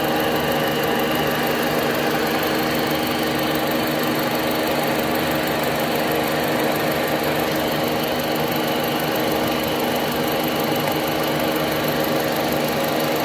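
2005 Honda Civic's four-cylinder petrol engine idling steadily, heard close up in the engine bay, while its loose intake air temperature sensor connector sets code P0113 (intake air temperature circuit high voltage).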